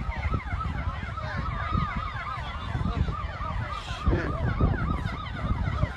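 Emergency vehicle sirens wailing in fast rising-and-falling sweeps, several overlapping at about three sweeps a second, over a heavy low rumble.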